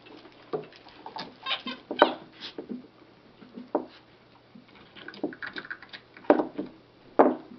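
Miniature dachshund rummaging through a toy box full of toys: irregular scrabbling, rustling and shuffling of toys, with a few sharp knocks, the loudest about two seconds in and twice near the end.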